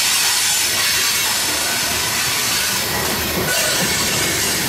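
Loaded coal train cars rolling past on steel rails: a loud, steady rumble of wheels on track, with faint thin high squeals from the wheels.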